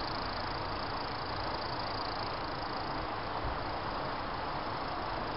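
Steady running noise of a 00 gauge model train, its coaches rolling along the track in an even whirr with no distinct clicks.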